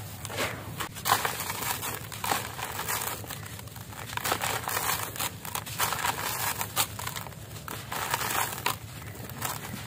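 Hands crumbling a dry, gravelly concrete cake: gritty crunching, and loose grit and dust trickling and pattering down, in uneven crackles.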